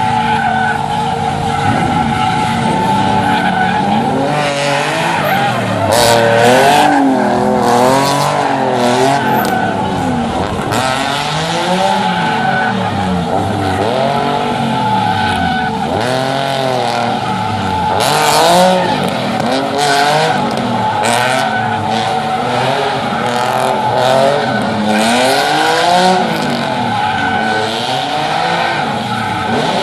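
Stunt car being driven in skids, its engine revving up and down again and again while the tyres squeal, with louder bursts of tyre noise about six seconds in and again at around eighteen seconds.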